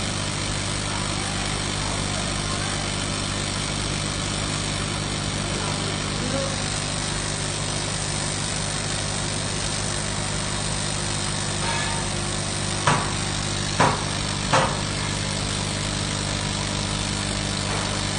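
Welding machine running with a steady low hum. Three short sharp clicks come about two thirds of the way through.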